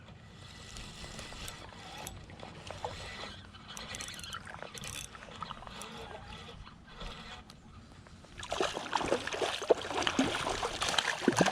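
A spinning reel being cranked with ratcheting clicks while a hooked brown trout is fought. From about eight seconds in the sound grows louder with water splashing as the fish is brought in to the net.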